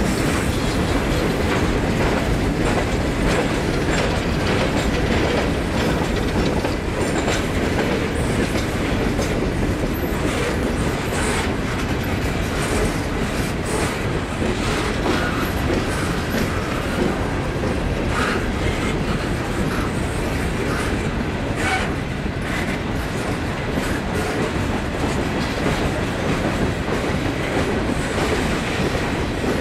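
Norfolk Southern coal train's open-top gondola cars rolling past: a steady rumble of steel wheels on rail, with scattered clicks and clatter from the wheels and cars.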